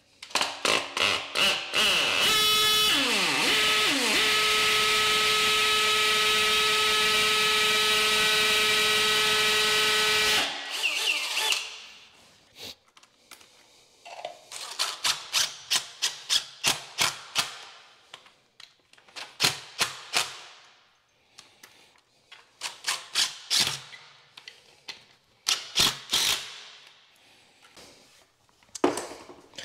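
Cordless hammer drill and drill/driver working at a toilet flange over a concrete slab. A couple of seconds of rapid rattling clicks lead into a loud, steady motor run of about eight seconds that cuts off sharply. Then comes a long string of short trigger bursts, as masonry holes are drilled and 3/16 Tapcon concrete screws are driven.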